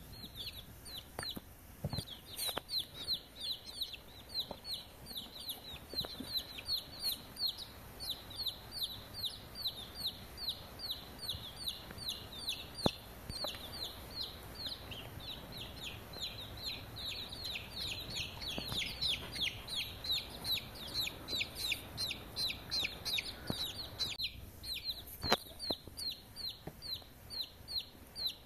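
Baby chicks peeping without a break: a dense stream of short, high, falling peeps, several a second, from more than one bird. A few sharp clicks stand out here and there.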